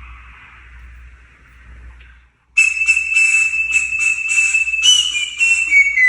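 Soft breathy hiss, then about two and a half seconds in a loud, high whistle-like tone starts abruptly. It pulses about three times a second and steps down slightly in pitch near the end.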